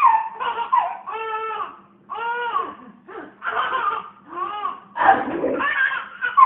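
A baby laughing in a string of short, high-pitched bursts with brief breaths between them.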